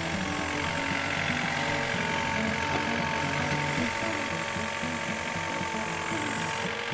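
Mini excavator working: its diesel engine runs steadily under hydraulic load, with a steady whine from the drive, as the machine is moved to drive a derailed rubber track back onto its rollers.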